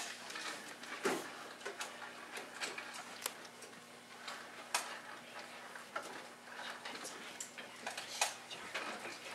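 Students writing with pencils at their desks: scattered small clicks and taps of pencils and paper, about one every second or so, over a steady low hum of room tone.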